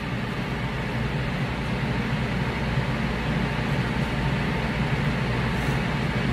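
Steady background noise with a low hum underneath, unchanging throughout, with no distinct handling sounds.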